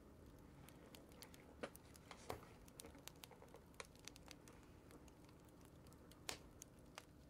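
Faint, scattered light ticks and rustles of paper and stickers being handled on a journal page, with a slightly sharper tap about two seconds in and another near the end.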